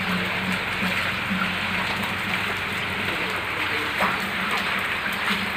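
Heavy rain falling steadily, a dense even hiss, with faint voices in the background.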